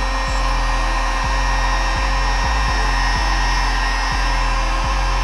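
Electric heat gun (Drill Master) running steadily: its fan blowing a constant rush of hot air with a faint steady hum, aimed at heat-shrink tubing on the motor's bullet-connector leads.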